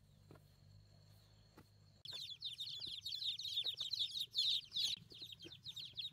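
A crate of young chickens peeping: many quick, high, falling peeps overlapping, starting suddenly about two seconds in after near quiet.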